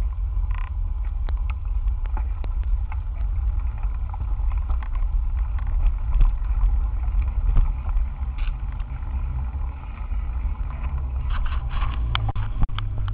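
Handlebar-mounted camera picking up a bicycle ride over rough, cracked pavement: a steady low rumble with scattered small rattles and clicks, and a burst of rattling near the end.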